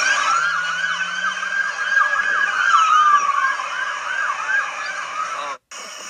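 Several emergency vehicle sirens sounding at once: a fast yelp sweeping up and down a few times a second, overlapping a slower wail that falls in pitch. The sound cuts off abruptly about five and a half seconds in, then comes back quieter.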